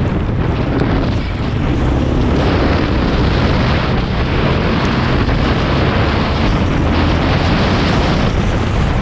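Loud, steady wind buffeting the microphone over the running engine of a quad bike being ridden.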